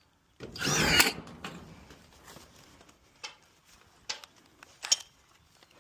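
Power drill briefly spinning up and driving a screw with a wavering whine about half a second in, ending in a click. A few faint taps follow.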